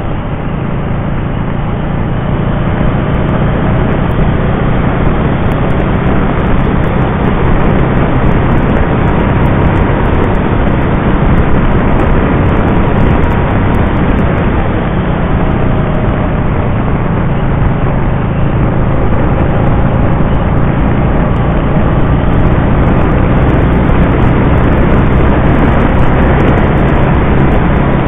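Can-Am Spyder RT three-wheeled motorcycle cruising: a steady low engine drone under loud wind and road rush on the mounted camera's microphone, growing a little louder over the first few seconds.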